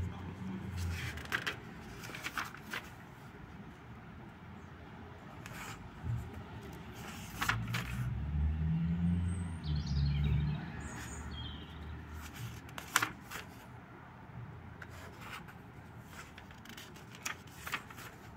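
Pages of a thin-paper notebook being turned and pressed flat by hand: short paper rustles and taps scattered throughout, with a low rumble that swells and fades midway.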